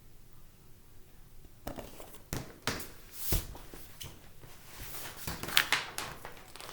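Paper rustling and handling noise as a picture book's page is turned: a run of rustles and soft knocks starting about a second and a half in.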